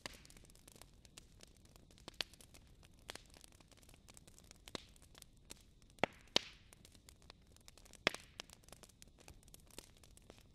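Fire crackling: scattered sharp pops and snaps at irregular intervals over a faint hiss. The loudest pops come in a cluster about six seconds in, one trailing a brief hiss, and again about eight seconds in.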